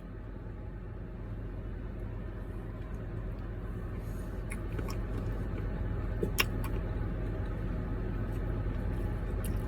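Steady low rumble of a running vehicle, growing slightly louder, with a few faint clicks about halfway through.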